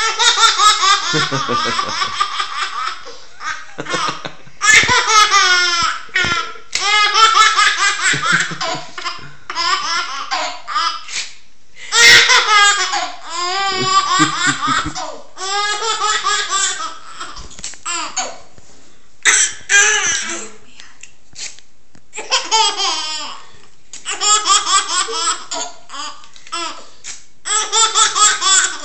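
A young girl laughing in long bouts of rapid, high-pitched giggles, with short pauses between the bouts.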